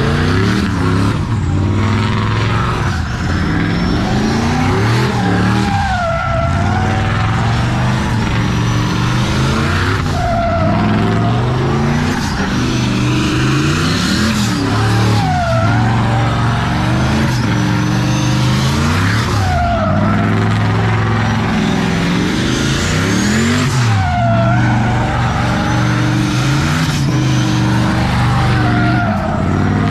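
Red pickup truck doing donuts: its engine is held at high revs while the rear tyres spin and squeal on the asphalt. The engine pitch sags and recovers about every four to five seconds as it circles.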